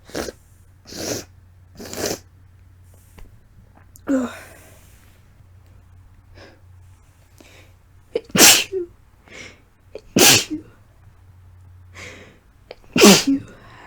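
Wet sneezes from a tickly, irritated nose, with sniffs between. A few short sniffs come first, then a run of sneezes, the three loudest about two seconds apart in the second half.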